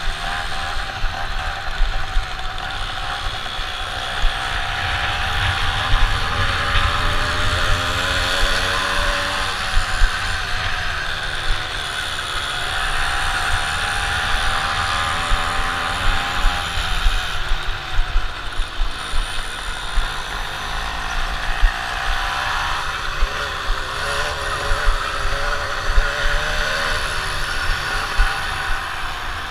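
Small moped engine of a punnvõrr race bike running hard, its pitch rising and falling again and again as the rider throttles on and off, with wind buffeting the helmet-mounted microphone.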